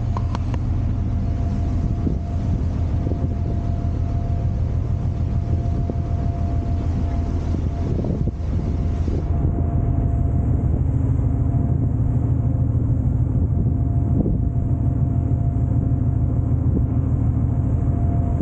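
Ferry engine running with a steady low drone and a faint steady whine above it, mixed with the rushing noise of the wake along the hull and wind on the deck.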